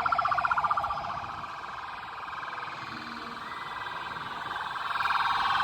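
Sirens with a fast, rapid warble, loud at first, fading after about a second and swelling back near the end.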